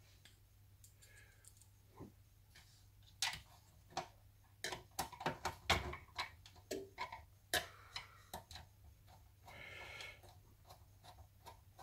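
Irregular small clicks and ticks of a hand screwdriver driving long screws into the plastic body of a 1980 MB Bigtrak toy, starting about two seconds in.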